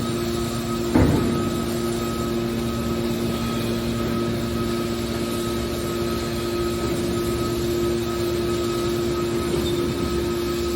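Aluminum baler machine running with a steady mechanical hum, and a single sharp clank about a second in.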